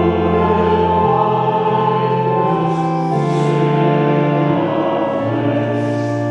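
Church organ playing slow, sustained chords, the bass note changing every second or two.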